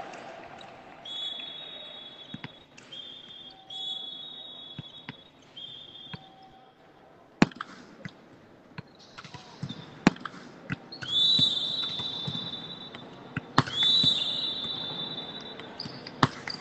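Volleyball being hit during a rally in a sports hall: several sharp slaps of hands on the ball a few seconds apart, the loudest about seven seconds in. Long, steady high-pitched tones come and go between the hits.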